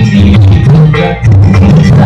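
Instrumental stretch of a melancholy dangdut song played loud through a sound system, heavy bass notes shifting about every half second under the melody instruments.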